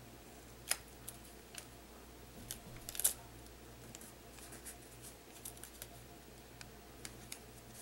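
Faint crinkling and ticking of a thin sheet of foil being smoothed and pulled tight by hand, with tape pressed down over it. There are a few sharper clicks, the loudest about three seconds in.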